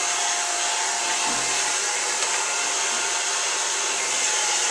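Handheld hair dryer running steadily, blowing a constant rush of air.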